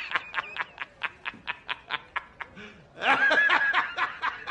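Laughter: a run of quick, breathy laughs, about five a second, then a louder, higher-pitched laugh about three seconds in.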